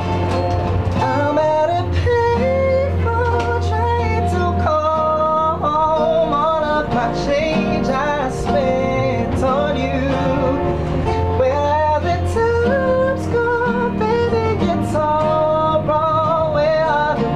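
A man singing a pop love song with guitar accompaniment.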